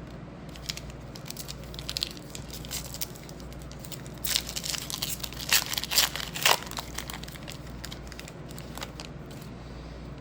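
Baseball card packs and cards being handled: a wrapper crinkling and tearing and cards rustling in short, uneven bursts, busiest around the middle.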